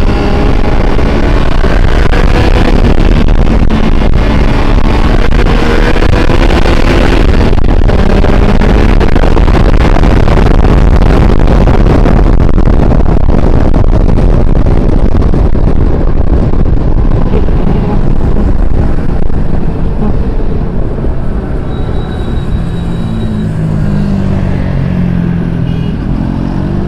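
Motorcycle engine running on the move, its pitch rising and falling through throttle and gear changes, under a heavy rush of wind on the microphone. It eases off past the middle and climbs again near the end.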